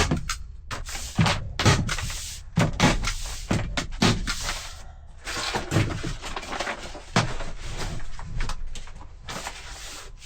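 Black tar paper being put up on a plywood wall: a series of irregular sharp knocks and thumps with paper rustling between them.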